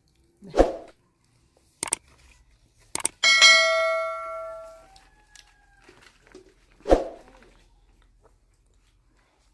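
A struck metal object rings clearly about three seconds in, several tones together, dying away over about a second and a half. A couple of sharp knocks come just before it, and dull thumps come near the start and again about seven seconds in.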